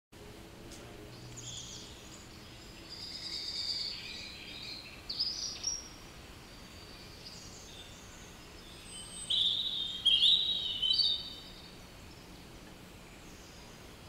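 Songbirds singing and chirping in short high bursts over a faint steady hiss, the loudest phrases about nine to eleven seconds in.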